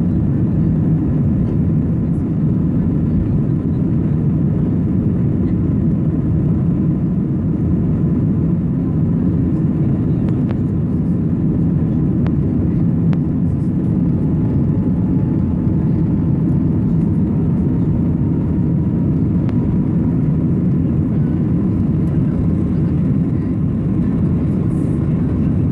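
Cabin noise inside an Airbus A320 climbing after takeoff: the steady low roar of the jet engines and rushing air, even and unbroken, with a faint thin whine above it.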